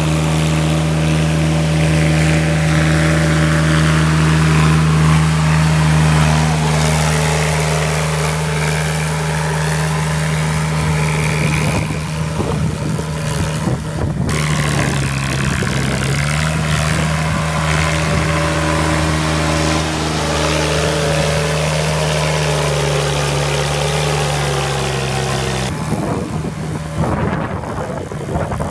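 Sonalika GardenTrac mini tractor's diesel engine running steadily under load while pulling a rotary tiller through wet paddy mud. The engine note dips briefly about halfway through, and near the end it falls away, leaving a rushing noise.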